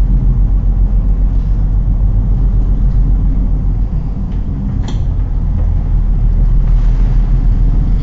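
Heavy, steady low rumble of a ship underway in strong wind, with one short sharp knock about five seconds in.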